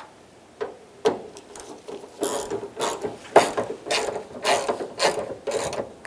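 Hand ratchet with a T30 Torx socket clicking in repeated back-and-forth strokes as it tightens the exterior door handle's retaining bolt down toward snug. The strokes are sparse at first and come about twice a second from about two seconds in.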